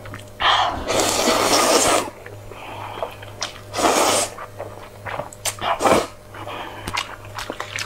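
Wide noodles in sauce being slurped into the mouth. A long slurp starts about half a second in and another comes around four seconds. Then come short wet clicks of chewing and lip smacks.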